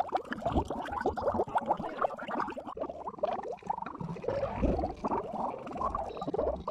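Effects-processed, pitch-shifted cartoon soundtrack: a dense, chattering run of short clicks and brief squeaky pitched bits, garbled and distorted.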